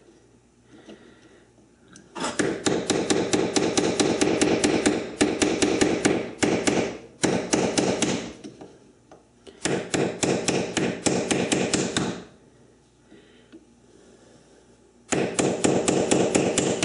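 Hand chisel struck with rapid, light hammer blows, roughly seven a second, chipping away aluminum on a lathe workpiece. The strikes come in four runs of a second or more each, with short pauses between.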